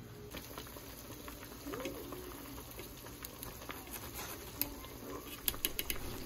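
Metal ladle working miso through a stainless mesh miso strainer in a pot of simmering soup: soft scraping and small clicks, with a few sharper clicks of the ladle against the strainer near the end.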